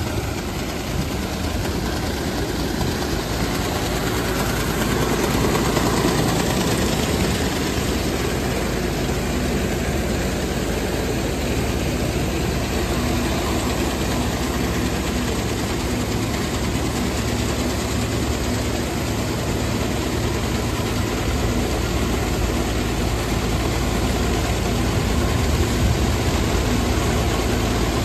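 Farm machinery running steadily: a John Deere 8430 tractor's diesel engine idling together with a grain auger conveying seed into the drill's hopper, a continuous low drone with mechanical noise.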